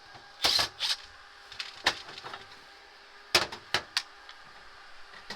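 Short bursts of tool noise during air-conditioner installation work: two close together about half a second in, a single click near two seconds, and three quick ones a little after three seconds.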